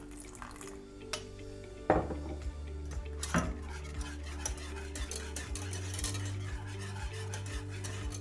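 A utensil stirring and scraping in a pan of thickening cornstarch and sugar syrup, with a few sharp clinks against the pan about one, two and three seconds in, over background music.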